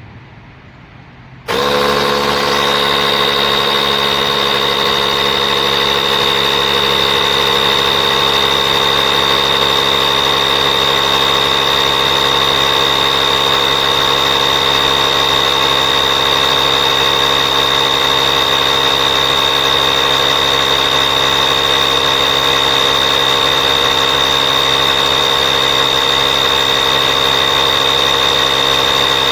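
Small 12 V air compressor built into a portable jump starter switches on abruptly about a second and a half in and runs steadily, a loud motor-and-pump hum with a high whine.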